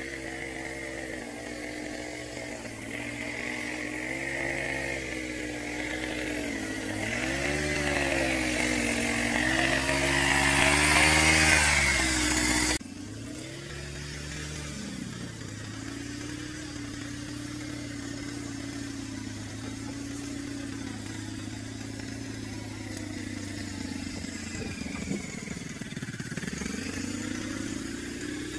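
Bajaj RE 175 engine of a homemade off-road buggy revving up and down as it drives. The revs and loudness climb up to about twelve seconds in, then the sound cuts abruptly to a quieter, steadier running, with a brief dip in revs near the end.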